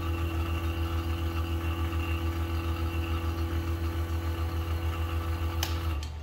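Fieldpiece VPX7 10 CFM two-stage vacuum pump running steadily with a fast pulsing hum as it pulls down a recovery tank through a non-vacuum-rated quarter-inch hose. Near the end there is a click, and the pulsing drops away to a quieter, steady hum.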